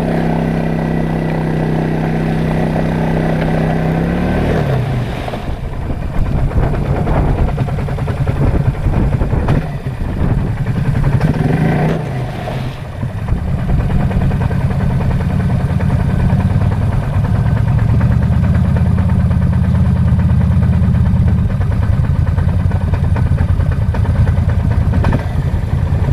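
ATV engine running: a steady pitch that drops about four seconds in, a brief rise and fall in revs around the middle, then steady running at a lower pitch.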